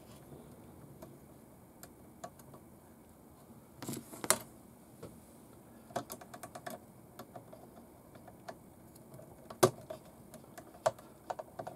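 Scattered light clicks and taps of small metal and plastic suspension parts being handled and fitted by hand on a scale RC truck chassis on a workbench. There is a louder double clatter about four seconds in, a quick run of small clicks around six seconds, and a sharp knock just before ten seconds.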